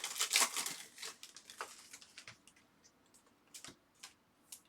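Trading cards being flipped and slid against one another by hand: a quick run of papery swishes and flicks in the first second, then a few scattered ones.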